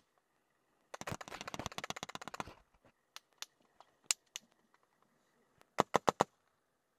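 Small-arms gunfire in a firefight. About a second in there is a rapid burst of automatic fire lasting about a second and a half, then scattered single shots, and near the end four loud shots in quick succession.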